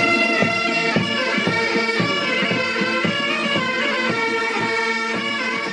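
A band of bagpipes playing a tune over their steady drones.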